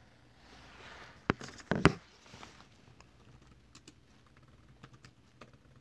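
Laptop keyboard being typed on: a few sharp keystrokes between one and two seconds in, then scattered lighter key taps.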